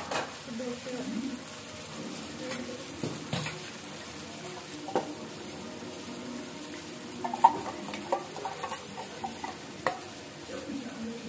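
Onion-tomato masala frying in oil in a pan, sizzling steadily while it is stirred, with a few sharp clinks of a metal spoon against a steel bowl and the pan as a little water is added.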